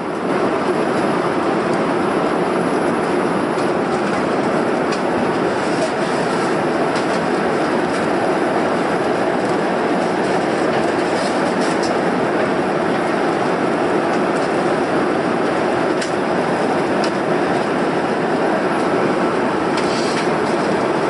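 Airliner cabin noise: a loud, steady rush of engines and airflow heard from a passenger seat, with a few faint clicks and rattles.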